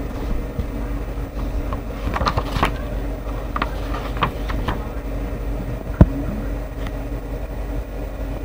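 Handling noise from a camera and book being moved: scattered clicks and rustles over a steady low hum, with one sharp knock about six seconds in.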